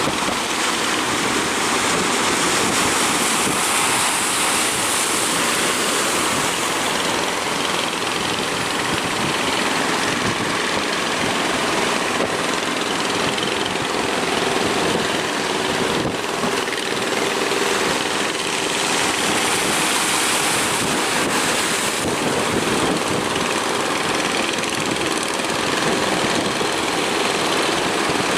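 Steady rush of surf and wind, with a boat's engine running underneath.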